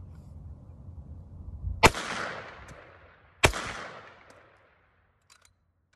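Two shots from a US M1 .30 caliber carbine, about a second and a half apart, each followed by a long echo dying away over about a second. A few faint clicks near the end.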